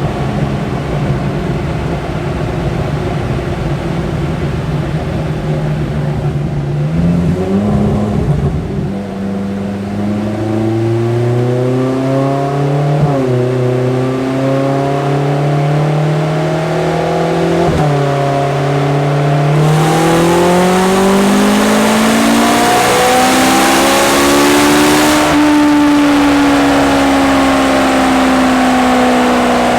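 Ferrari 458 Challenge's 4.5-litre V8 in a full-throttle chassis-dyno power run. It runs low and steady for several seconds, then the pitch climbs through the gears, dropping briefly at two upshifts about 13 and 18 seconds in. It rises to a loud, raspy peak about 25 seconds in, then the revs fall off slowly.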